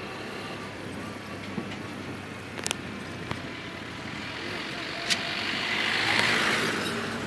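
Steady wind and road noise from riding on a motorcycle, with a JAC light truck passing close by: its noise swells about five seconds in and eases near the end.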